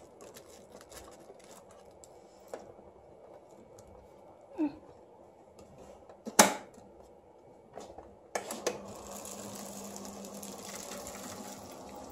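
A sharp click about six seconds in as the roller lock lever is moved, then the WiAir-1000 air-cushion machine starts up about eight seconds in and runs steadily, its blower and rollers making a constant low hum.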